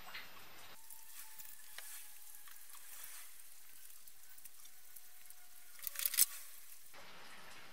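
Faint crackling and rustling of application tape being rubbed and peeled off vinyl decal lettering on a painted steel fuel tank, with a few louder crinkles about six seconds in.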